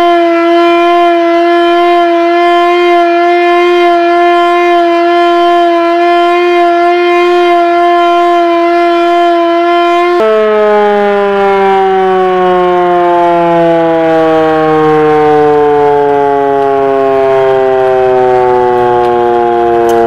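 Portable Civil Defence siren on a tripod stand wailing loudly, sounding the start of a two-minute silence. It holds a steady pitch for about ten seconds, then its pitch drops and keeps falling slowly as it winds down.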